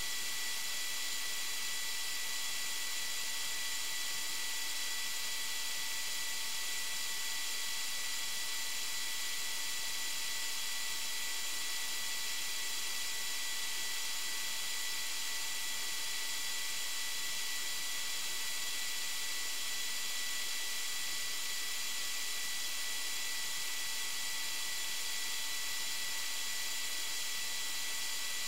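Steady electronic hiss with several faint, constant high whining tones: the recording device's own circuit noise. Nothing else rises above it.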